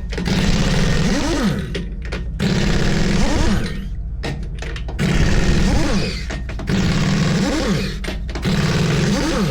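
Pneumatic impact wrench hammering on truck wheel nuts in repeated bursts of about a second each, with short pauses between trigger pulls.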